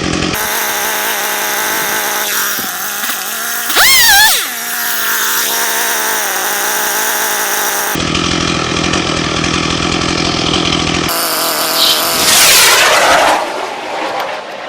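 Chainsaw running on wood, with sudden shifts in its note, revving sharply about four seconds in and again near the end.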